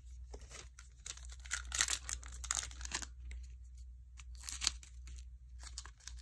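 Foil trading-card pack wrappers crinkling and tearing, in several bursts between about one and three seconds in and again briefly near five seconds.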